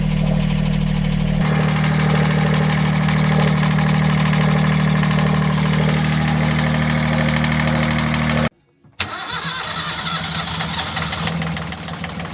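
Sailboat's inboard diesel engine running steadily, the engine having just been brought back to life after air was bled from its fuel system. A brief break comes about eight and a half seconds in, then the engine is heard again, less steadily.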